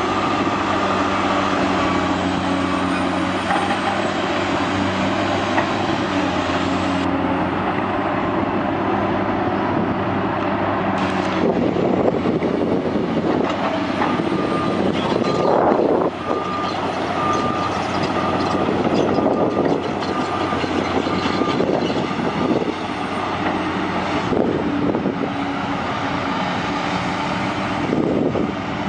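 Heavy construction machinery running, its diesel engines holding a steady drone, with a repeating beep like a back-up alarm in the second half. The sound changes abruptly about eleven seconds in.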